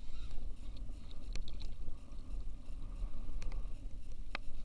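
Wind rumbling on the microphone and water lapping against a plastic kayak hull, with a few light clicks and knocks; the sharpest comes near the end.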